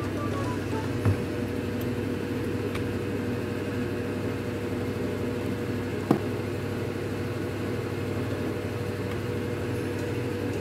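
A steady mechanical hum, with two sharp clicks about a second in and about six seconds in, from handling a plastic air fryer and its basket.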